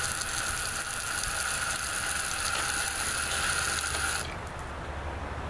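Toilet tank fill valve hissing as mains water jets through it into a plastic bucket, with a steady high whistling tone. It cuts off suddenly about four seconds in as the float is pushed to close the valve, which is not shutting off by itself.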